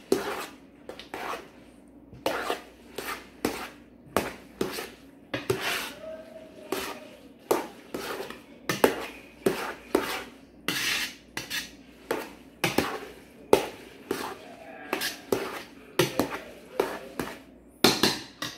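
A spoon stirring pasta in a large speckled enamel stockpot, knocking and scraping against the pot's sides in an uneven rhythm of about one or two knocks a second, with a quick cluster of knocks near the end.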